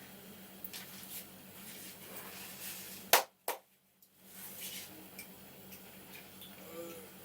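Head and neck massage: soft rustling of hands working over hair and skin, broken about three seconds in by two loud, sharp cracks half a second apart.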